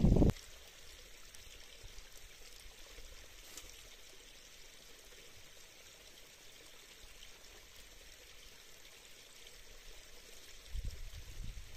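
Wind buffeting the microphone stops just after the start, leaving a faint, steady rushing hiss; the wind gusts build again near the end.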